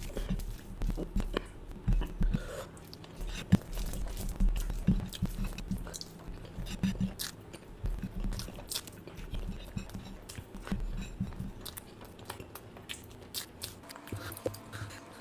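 A person chewing and biting food close to the microphone, with irregular crunches and mouth clicks.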